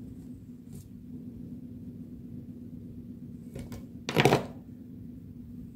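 Quiet handling of paper diorama pieces being stuck in place: a few faint clicks and one louder brief noise about four seconds in, over a steady low hum.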